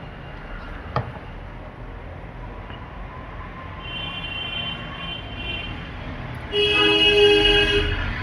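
A steady horn-like tone with several overtones sounds for about a second and a half, starting about six and a half seconds in; a fainter one is heard from about four seconds in, and there is a single sharp click about a second in.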